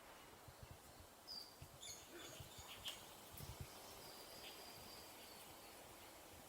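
Faint bird chirps and a short whistle over quiet background noise with low, scattered rumbles.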